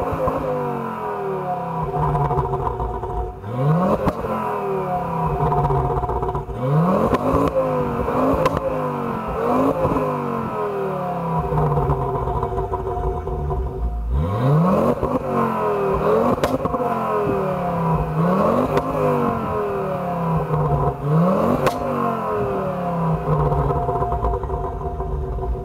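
Exhaust of a tuned 2006 Ford Focus ST's turbocharged 2.5-litre five-cylinder, free-revved while standing still: about eight sharp blips of the throttle, each rising quickly and falling back to a steady idle.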